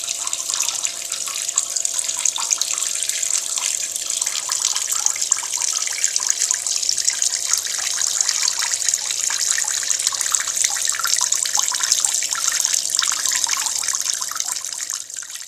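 Water running out of an opened valve on a central heating circuit into a bucket: a steady loud splashing rush with a faint steady tone beneath it, fading away at the very end. The water is being let out to bring down a system pressure that keeps creeping too high, which the owner puts down to a valve inside the boiler passing water from one circuit to the other.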